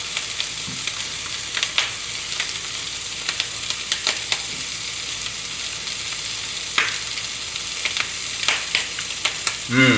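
Pork and vegetable stir fry sizzling steadily in a hot frying pan, with scattered light clicks of a utensil against the pan.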